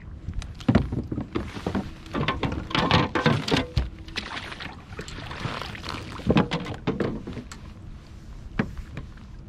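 Handling noise in a fishing boat: a series of knocks and thunks with rustling and scraping in between.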